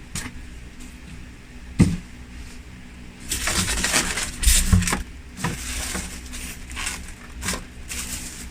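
Hands handling a burger and pancake maker and its packaging: a sharp knock, then crinkly rustling of plastic wrapping for about a second and a half, followed by scattered clicks.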